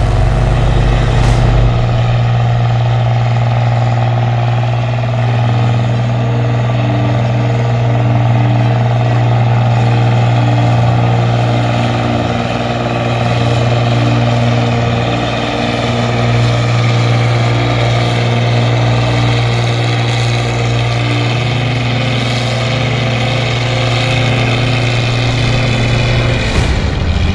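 New Holland combine harvester's diesel engine running steadily with a deep, even hum, its pitch shifting slightly near the end.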